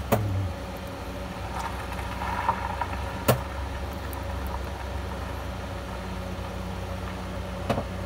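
Steady low mechanical hum, with a few sharp clicks or taps: one at the start, a louder one about three seconds in and another near the end.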